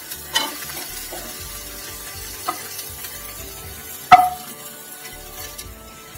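Fried pointed gourd slices tipped from one pan into a pan of sizzling masala and potatoes, pushed in with a wooden spatula: a light frying sizzle with three knocks of pan and utensil, the loudest about four seconds in with a brief ring.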